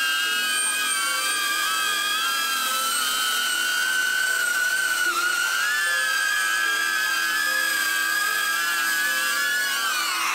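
DJI Avata cinewhoop's ducted propellers whining loudly as it hovers: several high tones waver and beat against each other. Near the end the pitch starts to fall as the drone settles onto the landing pad and its motors spin down.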